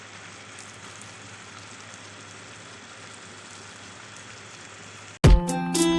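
Food frying in hot oil, a steady sizzle. About five seconds in, loud music starts abruptly.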